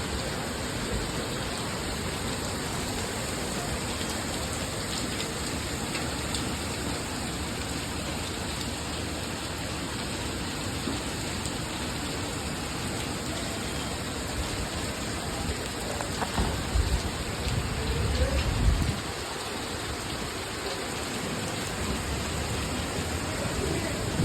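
Heavy rain pouring steadily in a sudden thunderstorm, with a deep rumble swelling for a few seconds past the middle and again near the end.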